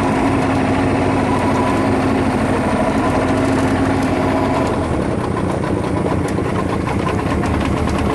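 Outboard motor of a small aluminium boat running steadily under way; about halfway through, its tone drops and it gets slightly quieter, as if the throttle is eased.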